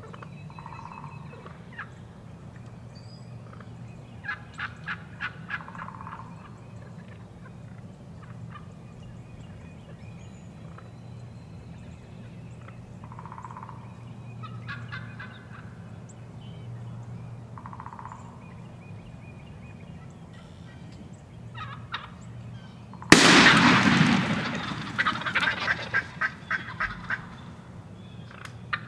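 Eastern wild turkey toms gobbling, each gobble a fast run of notes. Fainter gobbles come about four seconds in and again midway, and a much louder, closer gobble comes about two thirds of the way through.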